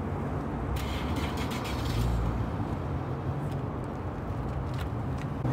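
Car engines idling in a busy parking area, a steady low rumble that grows a little stronger about two seconds in, with a few faint clicks.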